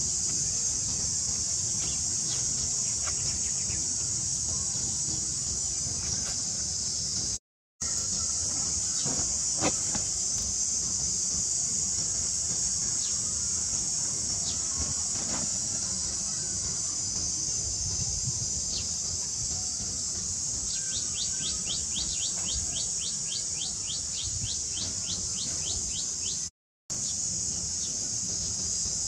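Insects droning steadily in a high, even chorus, with a rapid run of high chirps for a few seconds near the end. The sound cuts out briefly twice.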